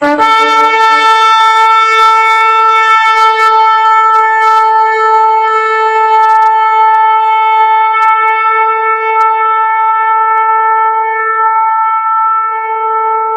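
One long, loud note blown on a big trumpet-like horn. It starts abruptly with a brief lower note in the first second, then holds steady at one pitch to the end.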